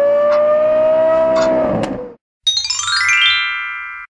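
Lexus LFA's V10 engine holding a high, steady note that creeps slightly upward, then drops away and cuts off about two seconds in. After a brief silence comes a bright, rising chime as the quiz answer is revealed.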